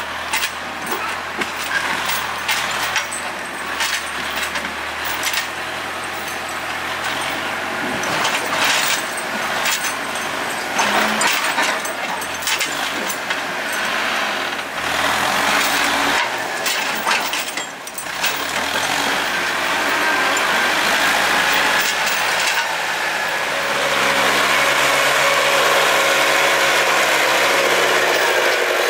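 LKT 80 forestry skidder's diesel engine running as the machine drives along the muddy trail, with repeated clanks and rattles. About five-sixths of the way in, the engine gets louder and runs harder.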